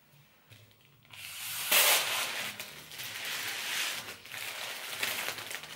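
Breath blown through a straw into a foil balloon: a breathy hiss that starts about a second in and comes in surges, with the foil crinkling and rustling as it fills.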